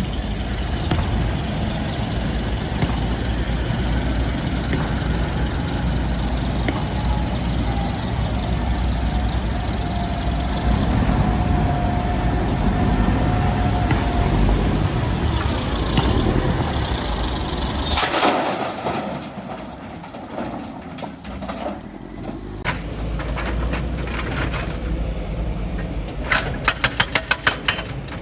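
Heavy diesel machinery running with a steady low rumble. After an abrupt change, rapid hammering strikes come near the end, about five a second.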